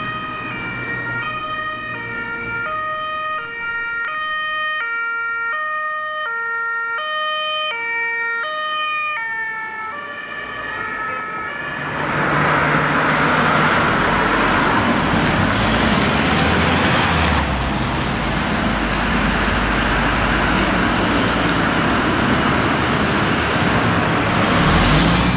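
Two-tone German emergency siren (Martinshorn) on an Audi A6 emergency doctor's car, switching back and forth between two pitches about every two-thirds of a second for the first ten seconds or so. About twelve seconds in, a louder steady rushing noise of passing road traffic takes over.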